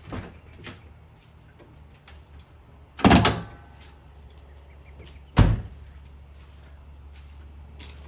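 Car door on a Mazda RX-8 opened and shut: a faint latch click at the start, then two loud thumps, one about three seconds in and a short sharp slam about five and a half seconds in. No engine cranking is heard.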